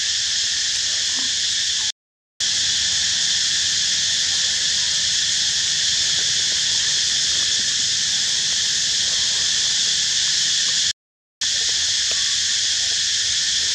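Loud, steady, high-pitched hiss of a forest insect chorus, cut to dead silence for about half a second twice: about two seconds in and about eleven seconds in.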